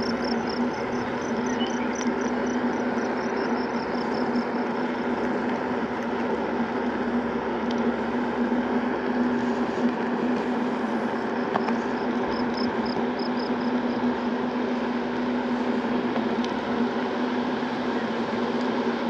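Segway Ninebot Max G2 electric scooter riding steadily along a paved path: a constant hum from the motor over the rush of tyres on the asphalt. A faint high chirping, about five pulses a second, comes and goes near the start and again about twelve seconds in.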